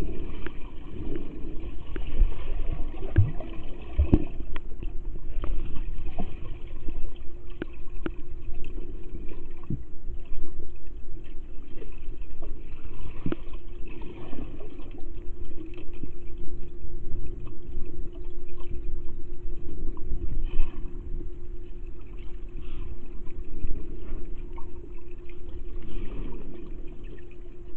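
Muffled underwater sound picked up by a waterproof camera held under the surface of a swimming pool: water churning and sloshing as swimmers move, with a steady low hum under it. A few dull thumps come in the first few seconds.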